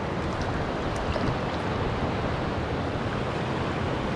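Shallow mountain stream rushing steadily over stones, with a light splash about a second in.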